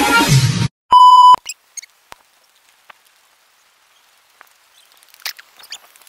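Electronic music cuts off, then a single loud, high electronic beep about half a second long. After it come only faint scattered taps and clicks.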